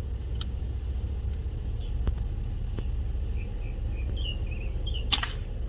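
Steady low rumble like a running vehicle, with a few faint short high chirps in the middle and a sharp click about five seconds in.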